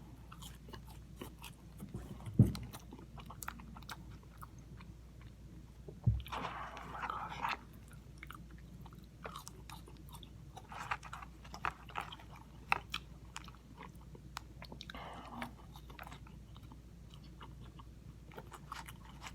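Close-miked eating of crispy fried food: crunching bites and wet chewing with many small mouth clicks, with longer crunchy stretches about six seconds in and again about fifteen seconds in. Two low thumps, about two and six seconds in, are the loudest sounds.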